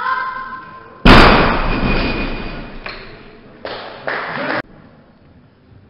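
A steady beep, the referees' down signal, then about a second in a barbell loaded with bumper plates is dropped from overhead onto the lifting platform: a loud crash with ringing from the bar and plates that dies away over a couple of seconds. A further burst of noise about a second long follows near the end.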